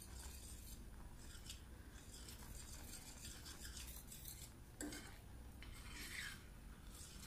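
Metal spoon stirring and scraping a steel pan of thick, reducing milk being cooked down into khoa: faint repeated scrapes, with a sharper knock of the spoon against the pan about five seconds in.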